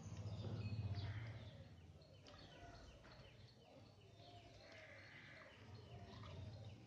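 Faint chirping of small birds, many short falling chirps, over a low hum that is loudest in the first second or two.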